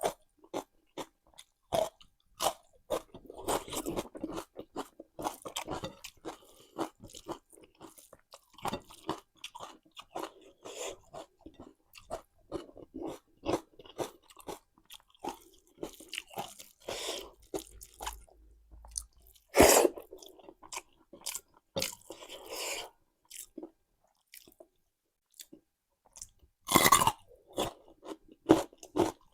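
Close-up chewing and crunching of raw salad vegetables, beginning with capsicum: a steady run of crisp bites and chews, with two louder crunching bites about two-thirds of the way through and near the end.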